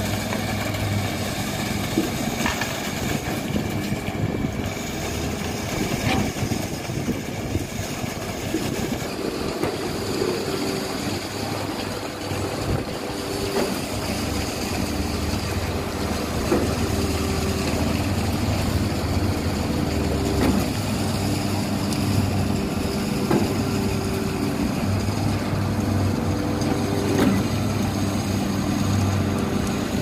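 Diesel engines of a truck-mounted concrete pump and a readymix mixer truck running steadily while pumping concrete, with a knock every few seconds.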